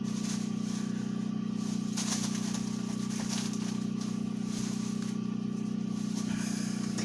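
A steady low electrical hum with even overtones, unchanged throughout, with a few faint light ticks and rustles over it.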